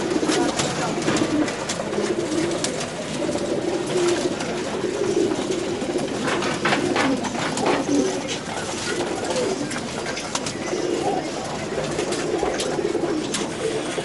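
A flock of domestic pigeons cooing continuously, overlapping into a steady murmur, with many sharp clicks and taps of beaks pecking feed off the boards.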